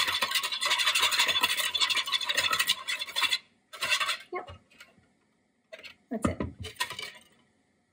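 Wire whisk beating egg and milk in a KitchenAid mixing bowl, a fast run of clicking strokes against the bowl for about three seconds, then two shorter bursts of whisking before it stops near the end.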